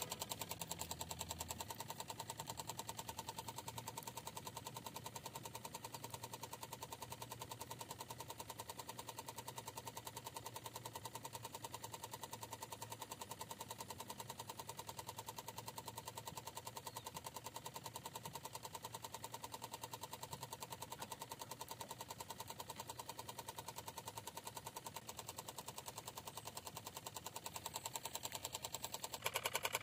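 Miniature diesel water pump model running steadily, a small, fast, even chattering of the engine.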